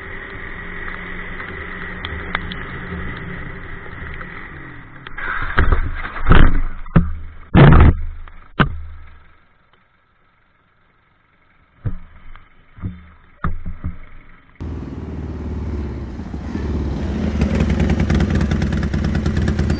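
Motorcycle running on a wet road with wind and road noise, then a crash: several loud clattering impacts as the bike goes down, about five to nine seconds in. After a short silence come a few sharp clicks, then a loud rushing noise that starts suddenly near the end.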